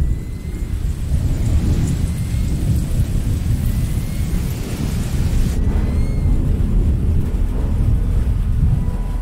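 A loud, steady low rumble with a hiss over it, in the manner of distant thunder or a dark ambient drone.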